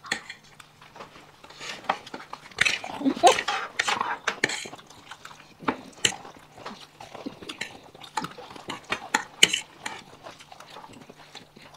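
Cutlery clinking and scraping against plates in quick, irregular clicks as several people eat noodles fast.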